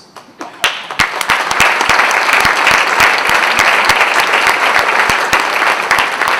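Large audience applauding: clapping starts about half a second in, swells within a second into dense, loud applause and keeps up, with sharp single claps close by standing out.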